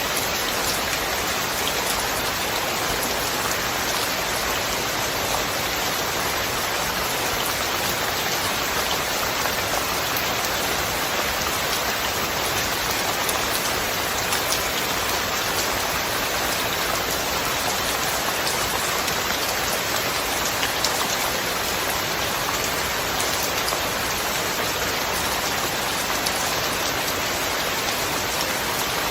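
Steady rain: an even hiss of many falling drops with scattered sharper drop ticks, and no thunder.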